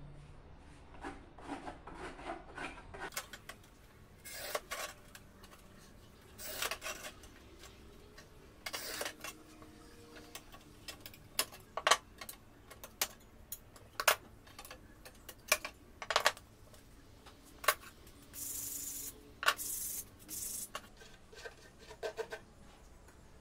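Scraping of cement mortar with a spatula in a metal bowl and inside a ceramic vase. The scraping comes in several longer rasps, and a scattering of sharp clicks and knocks runs between them as the tool and ceramic strips are tapped and set down.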